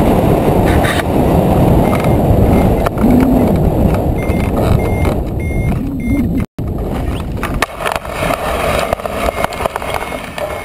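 Loud wind buffeting over the hang glider's wing-mounted camera microphone on the final low glide. About two-thirds of the way through the wind drops, and the glider's basetube wheels roll and rattle over dry ground as it touches down.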